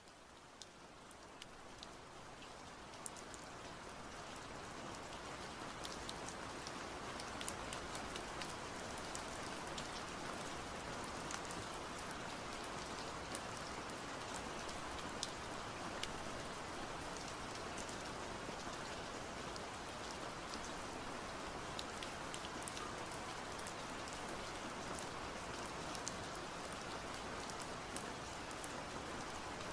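Steady rain-like hiss with many scattered faint ticks, fading in over the first several seconds and then holding level.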